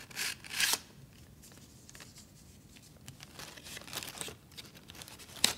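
Crinkling and rustling of a cardboard Tampax tampon box and the paper-wrapped tampons inside as they are handled close to the microphone. The rustling is louder in the first second and there is a sharp tap near the end.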